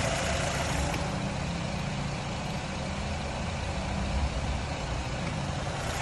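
2011 Nissan Rogue's 2.5-litre four-cylinder engine idling steadily with the hood open, with no misfire felt.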